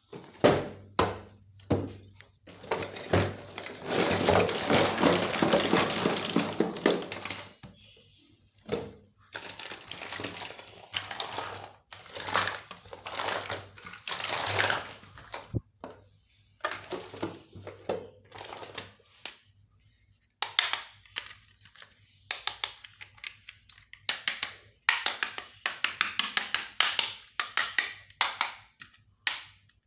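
Plastic packaging crinkling, with a long stretch of rustling about three seconds in, and the sharp clicks and knocks of small plastic toy kitchen pieces being handled.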